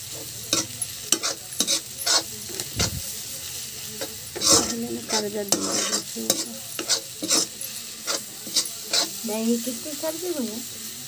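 Slotted spatula stirring and scraping onion-and-potato sabzi around an oiled wok, with steady sizzling of the frying vegetables and frequent sharp clicks and scrapes of the spatula against the pan.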